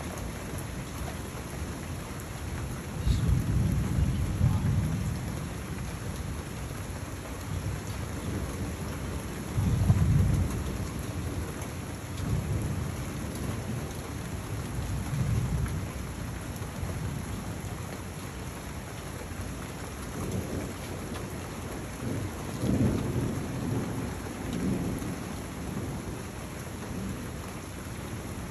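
Thunderstorm: steady rain falling, with repeated low thunder rumbles rising over it. The loudest peal comes about ten seconds in, and more rumbles follow through the second half.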